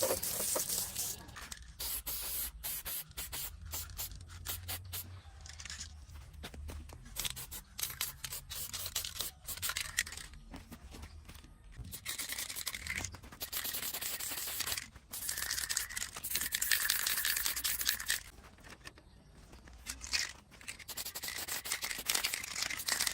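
Irregular scraping and rubbing strokes of hand work on a part, starting and stopping, with longer hissing stretches in the second half.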